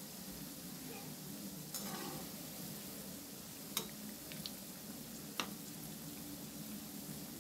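Fenugreek (methi) pakodas deep-frying in hot oil in a metal kadai: a steady sizzle, with a perforated metal spatula stirring them and clinking sharply against the pan twice, about four and five and a half seconds in.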